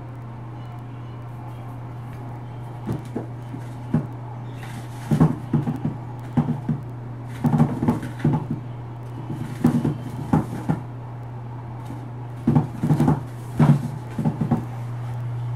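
Hollow knocking and rattling of a plastic chinchilla hideout house on a tile floor as a chinchilla moves about inside it, in short clattering bursts every second or two. A steady low hum runs underneath.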